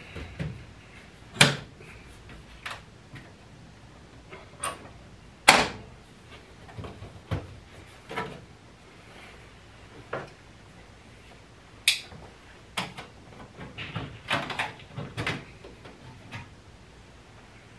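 Knocks and clunks from a furnace cabinet being handled as someone reaches into its filter compartment. The knocks come irregularly, the loudest a few seconds apart, with a run of smaller knocks near the end.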